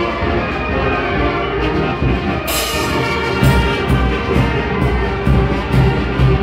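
Brass band playing: brass horns including a sousaphone over a drum beat. A crash comes in about two and a half seconds in, and a steady low beat of about two strokes a second follows.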